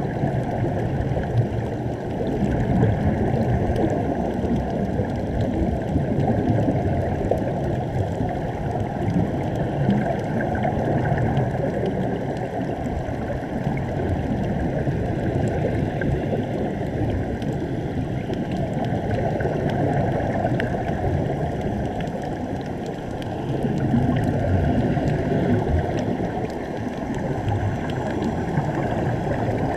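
Steady, muffled underwater rushing and gurgling of air bubbling out of sea-walking helmets fed by surface air hoses, heard through a GoPro's waterproof housing.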